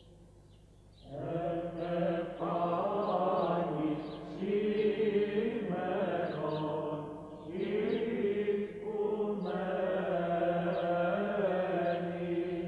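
Voices chanting in the manner of Greek Orthodox (Byzantine) chant, long held and slowly gliding notes in phrases of a few seconds over a steady drone, starting about a second in.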